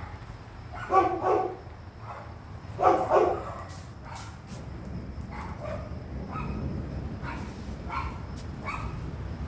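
A dog barking: two loud double barks in the first three seconds, then several fainter single barks. A steady low rumble runs underneath.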